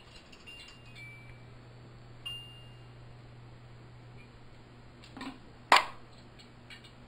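A 1950s preheat fluorescent fixture switching on: its magnetic ballast starts a low steady hum about a second in, with a few faint high pings and ticks over the next couple of seconds as the starter cycles and the tube strikes. Two sharp clicks come near the end.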